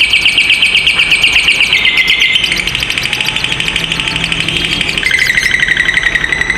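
Lovebird 'ngekek': a long, unbroken, very rapid chattering trill, high-pitched and loud. Its pitch drops a step about two seconds in and again about five seconds in.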